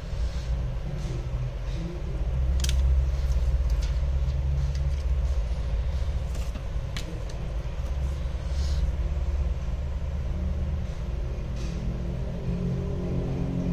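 A steady low rumble, louder through the middle, with a few light clicks and taps from small tools and parts being handled on a phone display assembly.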